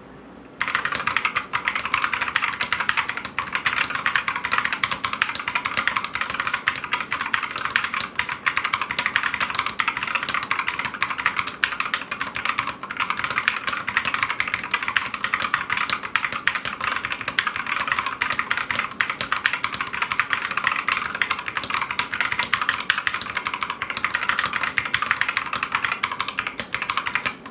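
Continuous fast typing on a Gamakay MK61 60% keyboard with Gateron Optical Red linear switches and PBT pudding keycaps: a dense, rapid clatter of keystrokes that starts about half a second in.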